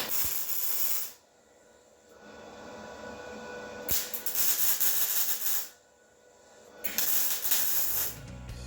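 Three separate bursts of high hissing, each a second or two long, like spray or escaping air. Music begins near the end.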